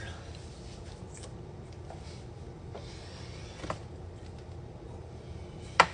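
Steady low room hum with a faint click partway through and one sharp knock near the end.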